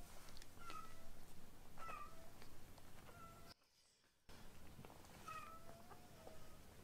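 Young tabby kittens mewing: about half a dozen short, high-pitched mews, some bending in pitch. The sound drops out for under a second a little after halfway.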